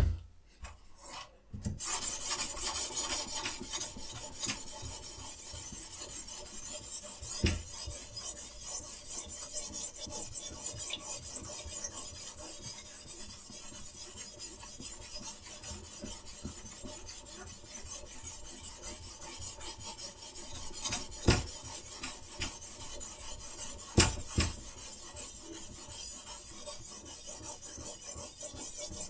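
A sharpening stone on a Sytools K09 guided-rod knife sharpener scraping back and forth along a steel knife blade in a continuous rasping grind. A few sharp clicks come just before the grinding starts, and several single knocks come later, as the stone or rod is handled.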